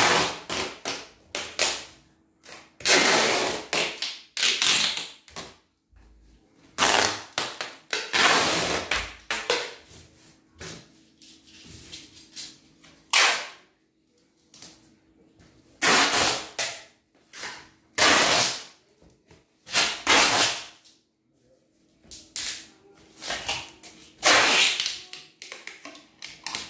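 Packing tape being pulled off the roll in a dozen or so loud rasping rips, each a fraction of a second to over a second long, with pauses between them as it is pressed onto a plastic-wrapped box.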